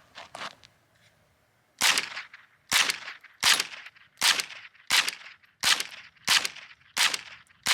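A Chiappa AK-22 blowback .22 LR semi-automatic rifle firing about nine shots at a steady pace, roughly one every 0.7 seconds, starting about two seconds in. It cycles round after round through the magazine without a malfunction.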